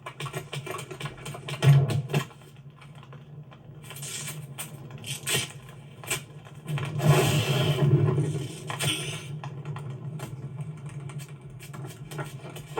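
Animated-film sound effects of a bug zapper: a steady electric hum with many crackling clicks, a loud burst about two seconds in and a longer loud crackling stretch from about seven to nine seconds in.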